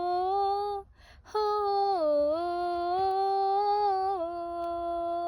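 A woman's voice humming long, held notes without accompaniment: one phrase ends about a second in, then a second long note glides down, holds steady and steps down near the end.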